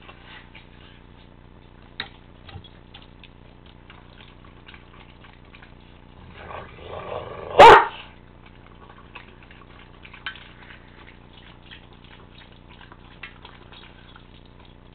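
A greyhound and a cat squabbling over a shared food bowl: scattered small clicks of eating, then about eight seconds in a brief scuffle that ends in one very loud, sharp cry.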